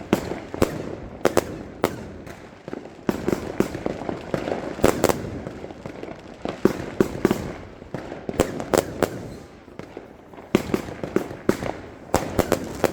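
Fireworks going off: a long run of sharp bangs at irregular intervals, some coming in quick clusters of several.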